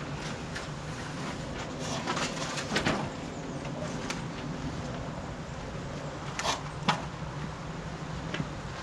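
A few scattered knocks and clunks, about half a dozen, from boards and panels being handled, over a steady low hum.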